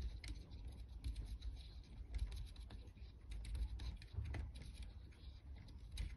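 A small hand tap being turned into a hole in a plastic part, cutting a thread: irregular scratchy clicks and creaks as the tap bites the plastic, over low handling noise.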